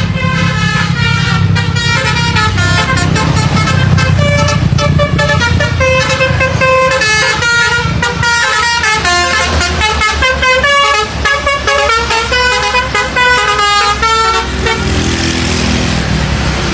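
Basuri V3 telolet bus horn playing a World Cup tune as a quick run of short, stepped notes, with the bus engine rumbling underneath. The tune stops near the end, leaving the engine and a hissing noise.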